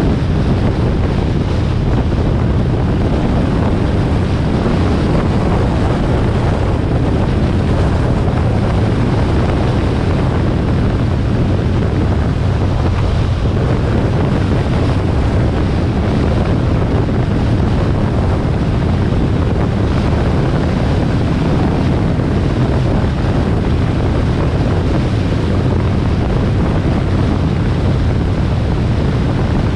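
Harley-Davidson Sportster XL1200R's air-cooled V-twin engine running steadily at cruising speed, with heavy wind noise on the microphone.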